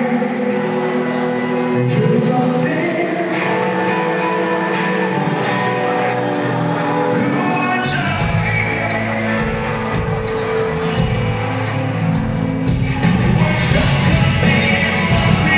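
A live rock band playing, with a man singing lead over electric guitars, drums and cymbals. The deep bass and kick drum come in about halfway through, and the band gets louder near the end.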